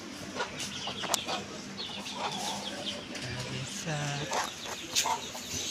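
Chickens clucking, with a scatter of short high chirps and light taps and one longer call about four seconds in.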